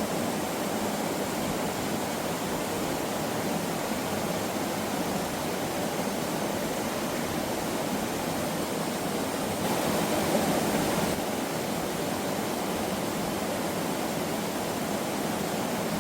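Mountain stream water rushing steadily, swelling a little for a moment about ten seconds in.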